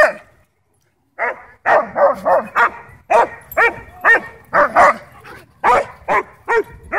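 Dogs barking over a ball: a German Shepherd demanding the ball and a German Shorthaired Pointer barking back at it in play. One loud bark comes at the start, then after a pause of about a second comes a rapid run of barks, two to three a second.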